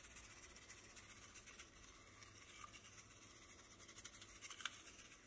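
Near silence with a faint, scratchy rustle of dry seasoning mix being shaken from a packet over the food, a little stronger about four and a half seconds in.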